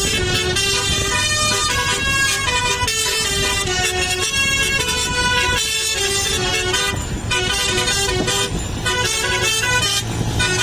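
A bus's basuri musical air horn playing a melody: a run of stepped horn notes changing every half-second or so, with no break.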